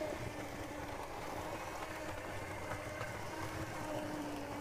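LEGO 9V train motor running steadily as the 4561 Railway Express locomotive pulls its cars around the track, giving a faint even whine over a low rumble.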